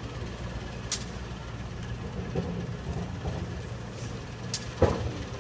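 Turntable slowly turning under Norfolk & Western J-class 4-8-4 steam locomotive 611: a steady low mechanical hum, with two short sharp clicks and a louder metallic knock near the end.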